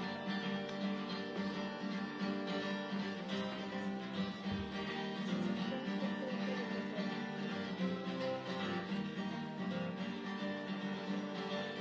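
Music: a guitar-led instrumental break of a pop song, with no singing.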